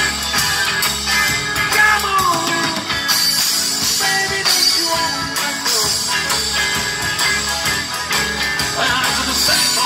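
A live band playing a blues-rock number, with electric guitars and drums over a steady beat, amplified through a PA.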